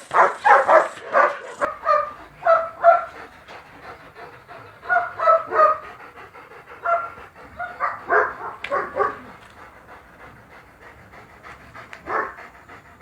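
A dog barking in short bursts, in clusters: several in the first three seconds, more around five and eight seconds in, and one near the end. Panting can be heard between the barks.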